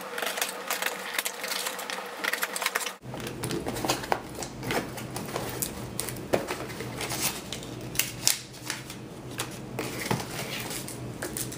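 Cardboard shipping box being opened by hand: the flaps are pried and pulled open and white packing material is handled and pulled out, giving irregular crackling, scraping and clicking handling noises.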